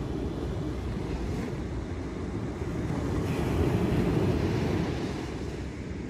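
Ocean surf breaking and washing up the beach, a steady low rush that swells a little about halfway through.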